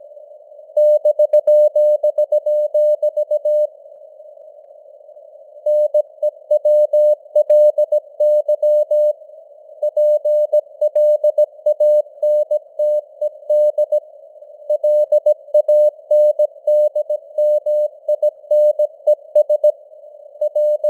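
Morse code (CW) sent at 17 words per minute as a single keyed tone of dots and dashes, over a steady hiss of simulated radio noise. The keying stops for a second or two a few times, between groups of characters.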